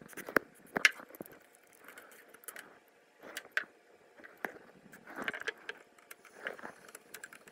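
Clicks, knocks and rustles of a circuit board and its phone-type connector being handled, with short hisses from an aerosol spray can with a straw nozzle aimed into the connector.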